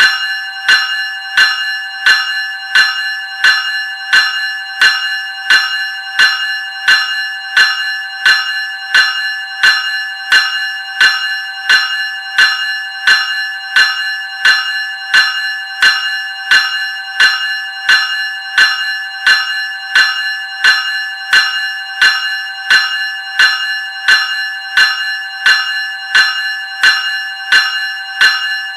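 Graham Electric 373 Series electric bell ringing: evenly spaced strikes, about one and a half a second, each ringing on with a bright metallic tone that hardly dies away before the next strike.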